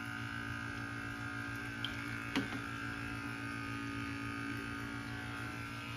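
Small battery-powered aquarium air pump clipped to a bucket, buzzing steadily as it aerates the water. A couple of light splashes or knocks come about two seconds in as hands move in the water.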